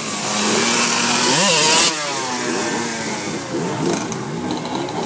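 Sport motorcycles revving as they pass in traffic, engine notes rising and falling, one sharp rev about a second and a half in. A loud rushing noise runs underneath and cuts off suddenly just before two seconds in.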